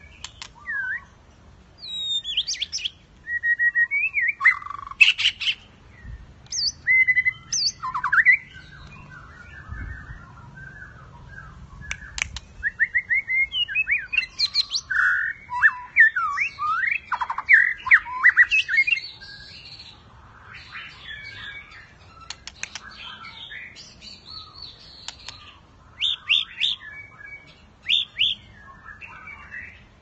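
White-rumped shama in full competitive song: a varied run of clear whistles, sliding notes and rapid trills, delivered in bursts of phrases with short pauses. It quietens for a while in the second half, with a few loud phrases near the end.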